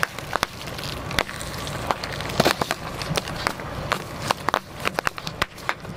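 Pickup truck tyre rolling slowly over a row of plastic Go-Gurt yogurt tubes, crushing and bursting them: a string of irregular sharp pops and crackles.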